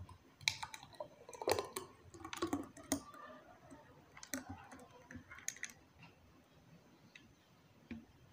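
Thick blended oat drink poured from a blender jar into a glass: short, soft clicks and wet plops, clustered in the first six seconds and thinning out after.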